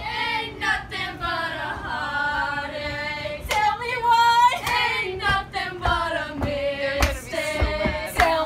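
Several young women singing a pop song together, loud and unaccompanied, with a few low thumps in the second half.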